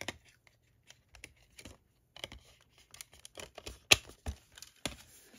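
Irregular light clicks and rustling as Blu-ray disc cases and packaging are handled, with a sharp plastic click about four seconds in and two smaller clicks after it.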